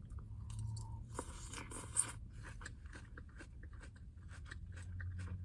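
A person chewing a mouthful of salad with crisp lettuce, many small wet crunches and clicks close to the microphone. A brief rustle about a second in, over a low steady hum.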